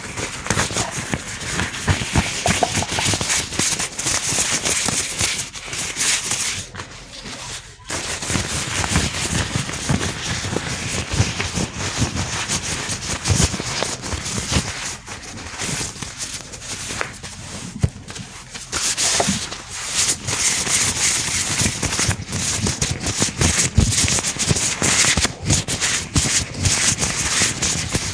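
Gloved hands rubbing and crinkling close to the microphone: a dense run of crackles and soft clicks, with a few brief pauses.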